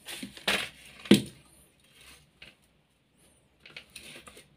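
Handling noise as a lead-acid motorcycle battery is lifted, shifted and set down on a tile floor, with one sharp knock about a second in. Lighter clatter near the end as the charger's front panel is handled.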